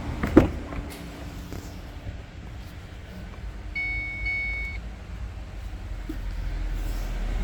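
A knock near the start, then about four seconds in a steady electronic beep, held for about a second with a brief break in the middle, over a low hum.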